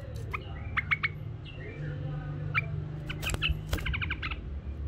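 White-eared bulbul giving short, sharp chirps, with a quick run of repeated notes about three and a half seconds in, over a steady low hum.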